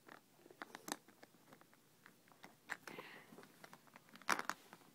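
Small plastic Lego pieces clicking and tapping as they are handled, a scattered run of light clicks with a louder cluster about four seconds in.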